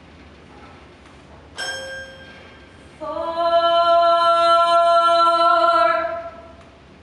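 A single toy piano note is struck about a second and a half in and rings briefly. A woman then sings one long held note for about three seconds.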